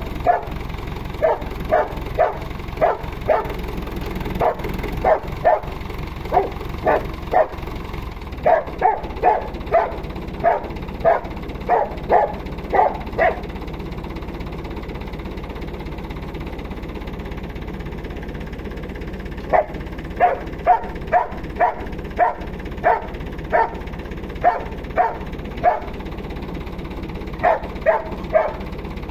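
A dog barking over and over, about two barks a second, in runs with a pause of several seconds in the middle. A steady low hum runs underneath.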